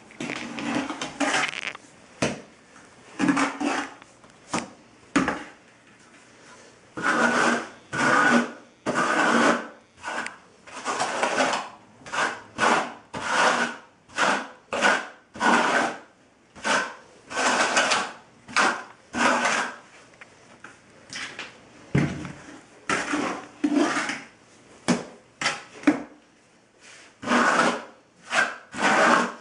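A trowel scraping across the floor in repeated rasping strokes, about one a second, spreading thinset mortar over the mesh of an electric floor-heating mat. The strokes are sparser for the first few seconds, then come steadily.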